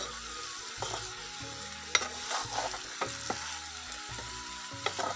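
Sliced potatoes sizzling in hot oil in a kadhai as they are stirred, with several sharp knocks of the stirring against the pan; the loudest comes about two seconds in.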